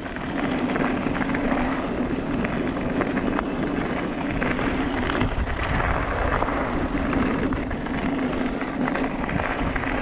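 Electric mountain bike riding over a gravel trail: tyre and gravel noise with wind on the microphone, many faint ticks and rattles, and a steady hum that drops out briefly about halfway through.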